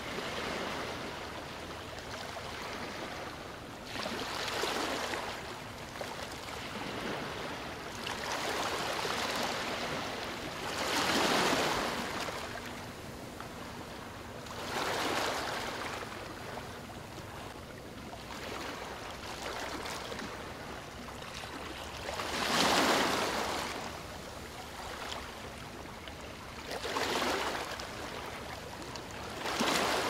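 Gentle ocean waves breaking and washing up a beach: a steady hiss of surf that swells and fades every few seconds, each wave rushing in then drawing back.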